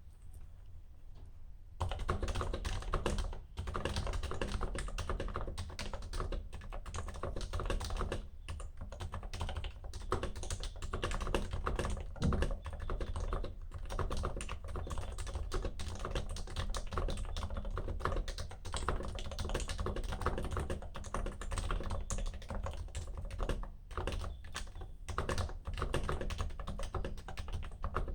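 Fast, continuous typing on an HHKB Bluetooth keyboard with silenced Topre switches. A few single keystrokes, then a steady stream of key presses starts about two seconds in.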